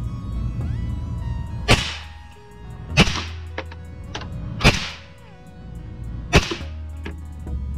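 Suppressed Zastava ZPAP92 7.62x39 AK pistol firing subsonic rounds: four single shots about a second and a half apart, each a sharp report with a short ring after it.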